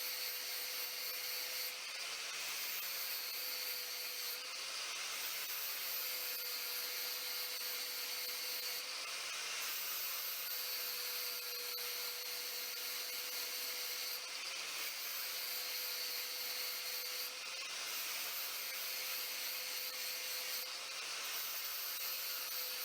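A 4.5-inch angle grinder runs steadily with a constant whine, grinding the edge of a lawn mower blade. Its note shifts slightly every three to four seconds with each pass over the blade, as it takes light cuts to bring the edge back to its proper angle.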